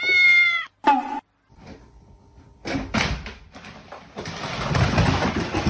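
A cat meows once, a single high call lasting under a second. After a short pause comes a few seconds of rustling with scattered knocks.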